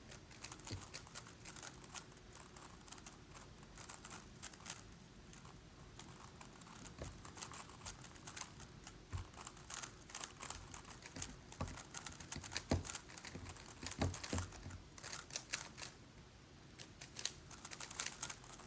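Megaminx puzzle being turned rapidly by hand during a speedsolve: a dense, uneven stream of quiet plastic clicks and clacks as its faces snap round.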